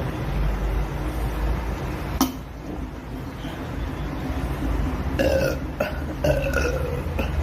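A woman burping, a string of four or five short belches in the last couple of seconds. A steady low rumble runs underneath, and there is a single sharp click about two seconds in.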